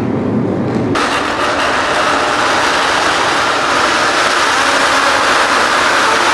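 A pack of MotoGP racing motorcycles running at high revs down the straight, a loud dense wall of engine noise. It cuts in suddenly about a second in, after a lower engine rumble.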